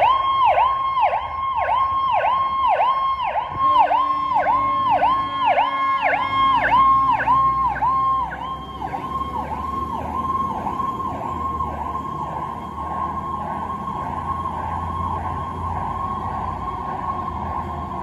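Fire truck electronic siren in a fast yelp, its pitch sweeping up and down about two to three times a second over a diesel engine's rumble. It is loudest in the first half and grows fainter later on.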